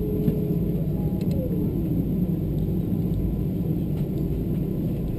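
Steady low rumble inside the cabin of a Boeing 777-200ER taxiing on the ground after landing. The engines at taxi power, the rolling wheels and the airframe blend into one even drone.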